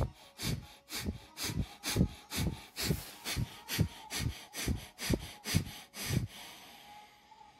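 Bhastrika (bellows breath): a man breathing forcefully in and out through the nose in rapid, even huffs, about two a second, stopping about six seconds in.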